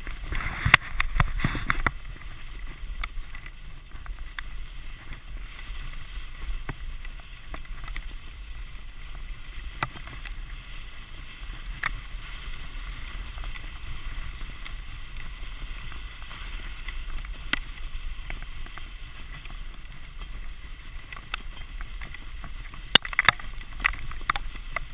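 A dog sled pulled by a running team of Siberian huskies, its runners hissing steadily over packed snow, with wind rumble on the microphone. Now and then the sled gives a sharp click or knock, most of them near the start and near the end.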